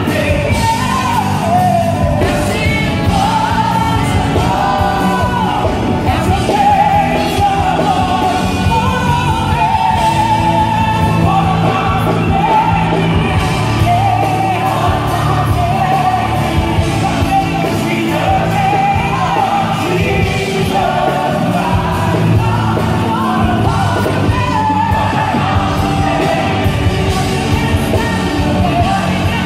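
Live gospel worship song: two women singing lead into microphones over instrumental accompaniment, echoing in a large church hall.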